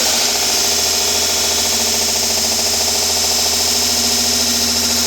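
Vevor 1x30 belt grinder running steadily at full speed with a 240-grit belt: a steady motor hum and whine under the hiss of the moving abrasive belt.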